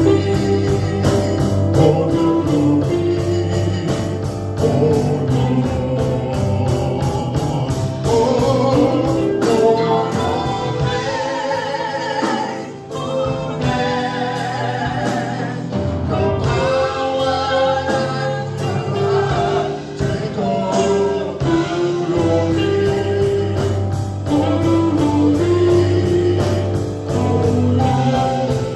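Gospel praise and worship music: a live band playing a steady beat under a group of singers.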